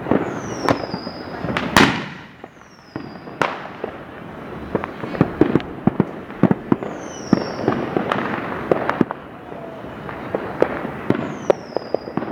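Neighbourhood fireworks and firecrackers going off: many sharp bangs and pops at irregular intervals over a continuous haze of distant crackling and booming, with one loud bang a little under two seconds in. Short high falling whistles recur about every four seconds.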